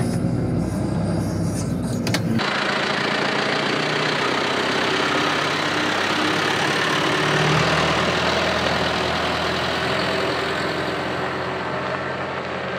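A diesel engine runs steadily for about two seconds. It then changes abruptly to a John Deere tractor drawing a loaded bale trailer past, its diesel engine running under a loud steady rushing noise. A deeper engine rumble swells briefly about seven seconds in.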